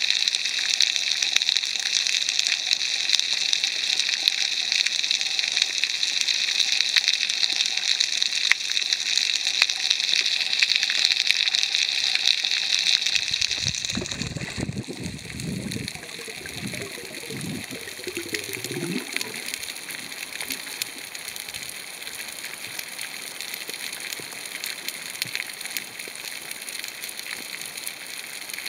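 Underwater ambience over a coral reef, heard through a submerged camera: a steady hiss with fine crackling. About halfway through come a few seconds of low gurgling bubbles, and after that the hiss is quieter.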